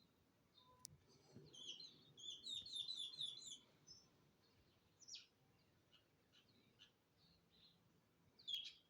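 Sparrows chirping faintly: a quick run of about six chirps a couple of seconds in, then scattered single chirps.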